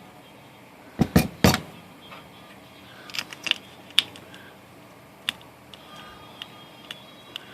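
Sharp metallic clicks and clatter from an IBM Selectric II typewriter's mechanism being worked by hand. There are three loud clacks about a second in, a few more around three to four seconds, then single light ticks. The typeball shaft is gummed up and the mechanism is sticking.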